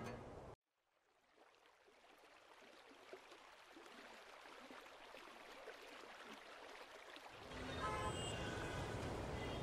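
Background music stops about half a second in. Faint outdoor ambience then fades in: an even wash of noise that slowly grows and steps up about seven seconds in. Short distant horn toots sound near the end.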